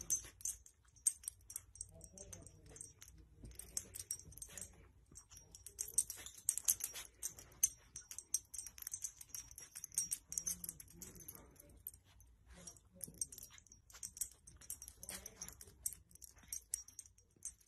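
Faint, irregular rustling and crinkling of a fabric blanket as a small dog noses and tugs at it.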